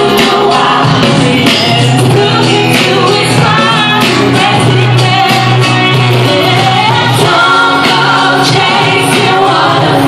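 Live pop performance by a female vocal trio singing into microphones over loud amplified backing music, recorded from within the crowd.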